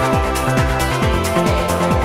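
Electronic dance music with a steady kick drum, about two beats a second, over held synth chords and hi-hats.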